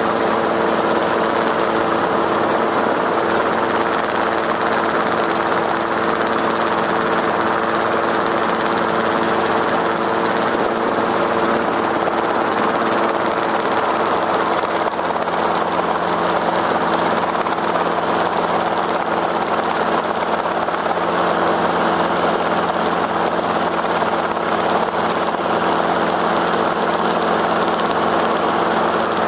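Engine running steadily with an even, droning hum whose pitch shifts slightly about halfway through.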